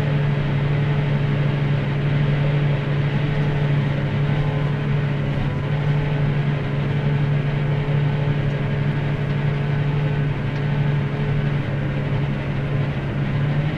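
Tractor engine running at a steady speed under load while pulling a subsoiler, heard from inside the cab: a constant low hum with a faint steady tone above it.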